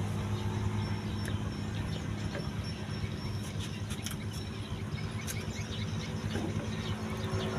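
A motor running steadily with a low, even hum, with a few faint knife clicks as watermelon is sliced and set down.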